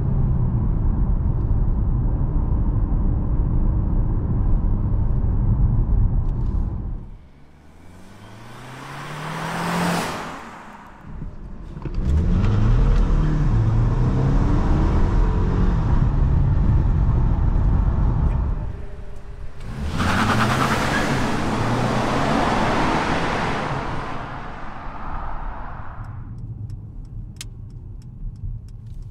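Cabin sound of a Mercedes E300e plug-in hybrid under way: heavy road rumble with its 2.0-litre four-cylinder petrol engine rising and falling in pitch as it accelerates, and two loud rushing swells of wind and road noise. Near the end it turns quieter at low speed, with a few faint ticks.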